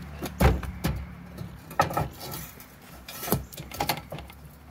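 Steel square-tube mount on a hand truck knocking and clanking against a trailer hitch receiver as it is worked into it: a handful of sharp metal knocks, the loudest about half a second in, over a steady low hum.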